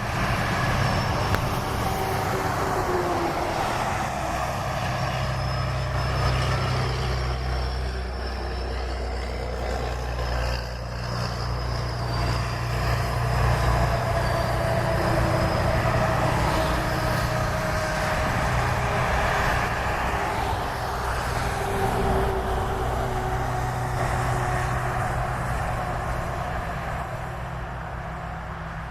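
Heavy truck's engine running with a steady low rumble, over the hiss of rain and wet road.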